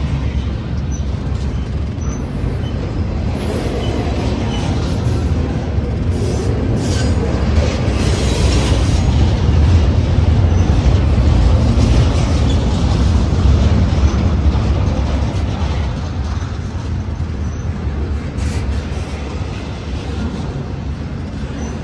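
Double-stack container train of well cars rolling past close by: a steady low rumble of steel wheels on the rails, swelling a little in the middle, with brief high-pitched wheel squeals now and then in the first half.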